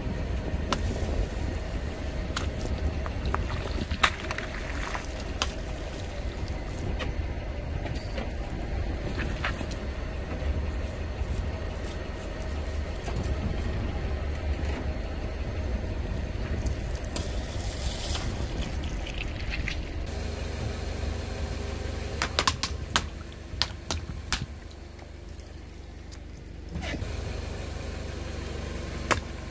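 A car's engine running with a steady low rumble as its tyre rolls over and bursts plastic bags filled with water beads, with scattered sharp pops and cracks and the wet sound of squashed water and beads.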